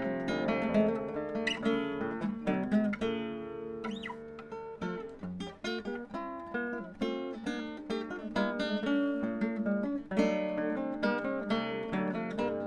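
Background music: acoustic guitar, plucked and strummed.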